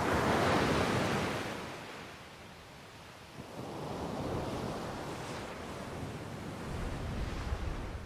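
Ocean waves breaking on the shore, a loud surge at the start that fades, then a second swell a few seconds in. Wind rumbles on the microphone near the end.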